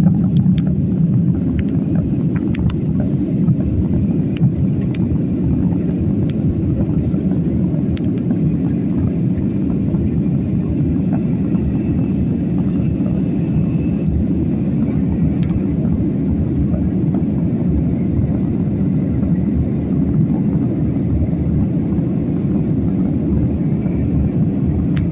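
Steady low rumble of an airliner's engines and airflow heard inside the passenger cabin, unchanging throughout, with a few faint ticks in the first few seconds.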